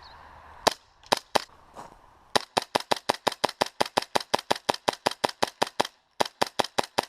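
HPA-converted KSC P226R gas blowback airsoft pistol firing: a few single shots at first, then rapid strings of about six shots a second with a short break near the end, each shot a sharp crack with the slide cycling.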